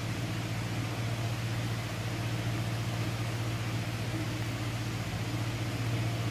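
Steady low machine hum over an even hiss.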